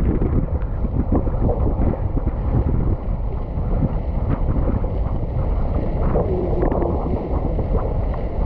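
Wind buffeting the microphone over water rushing and splashing against a sailing windsurf board, a steady rough rumble that swells briefly about six seconds in.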